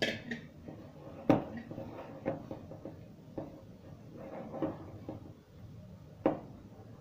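Hands working flour into dough in a plastic bowl: soft rustling and squishing, with a few sharp knocks of the bowl and hands against the counter, the loudest about a second in and again near the end.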